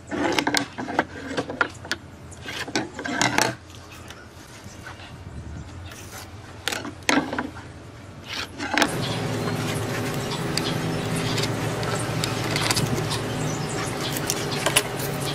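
Knocks and clicks of a pine board and metal hand tools being handled on a wooden worktable. About nine seconds in, a steady machine-like hum with several steady tones starts and keeps on at an even level.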